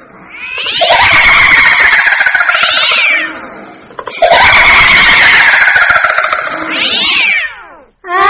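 Loud recorded ghostly wail, played twice: each is a long drawn-out cry that slides slowly down and ends in a quick rising shriek.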